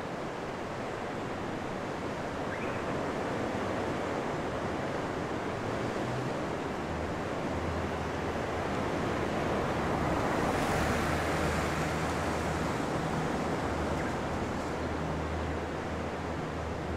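Steady rush of surf washing over the rocks of a sea shore, with wind; it swells a little past the middle. A low steady hum joins about a third of the way in.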